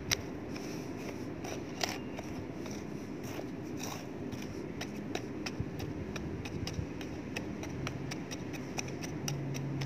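Small hand hoe chopping and scraping into dry, lumpy garden soil to loosen it: a run of short, irregular scrapes and clicks, several a second.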